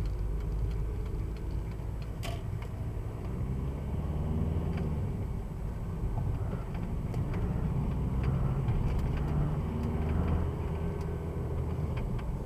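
2002 VW Jetta TDI's four-cylinder turbodiesel running under way, its low drone rising and falling in pitch, with scattered light clicks and ticks over it.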